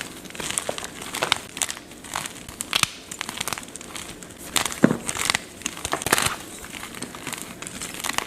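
Blocks of gym chalk (magnesium carbonate) being crushed and crumbled, giving irregular dry crunches and crackles, some soft and some sharper. The loudest crunches come about five and six seconds in.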